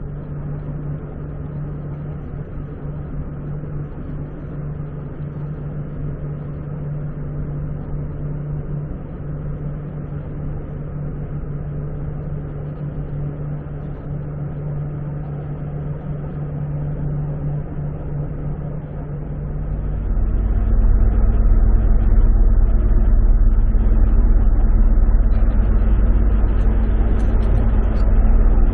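Steady low drone of the ferry's engines and machinery, which about twenty seconds in turns into a louder, deeper rumble.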